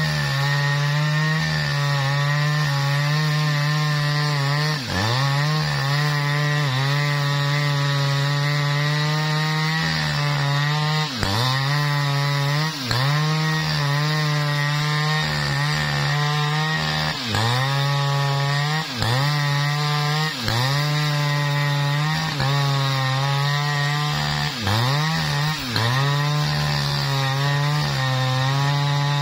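Jonsered chainsaw at full throttle ripping lengthwise through a jackfruit log. The engine note dips briefly every second or two as the chain bites into the cut, then picks back up.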